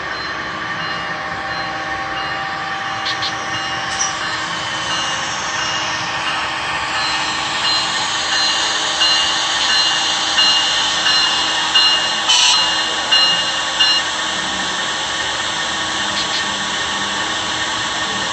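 HO-scale model Amtrak train running in on the layout track: a steady whine and the rumble of wheels on the rails, with a run of louder uneven clatters from about nine to fourteen seconds in.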